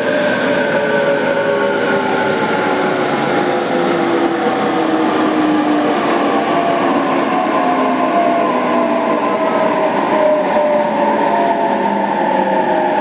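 Running sound inside a JR Kyushu 817 series 3000-subseries electric multiple unit motor car: traction motor and inverter whine over steady wheel and rail noise. The whine's several tones slide slowly down in pitch through the first half, and higher tones climb near the end.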